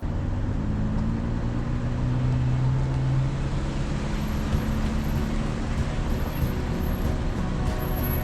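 An off-road 4x4 driving on a dirt trail: a steady rush of engine, tyre and road noise with a low engine hum that swells about two to three seconds in.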